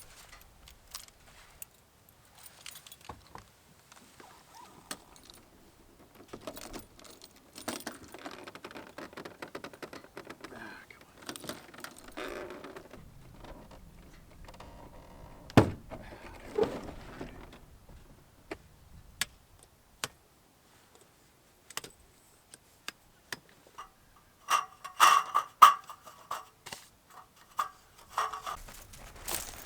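Irregular clicks, knocks and clinks of things being handled, with a sharp thump about fifteen seconds in and a run of metallic jingling and clinking near the end.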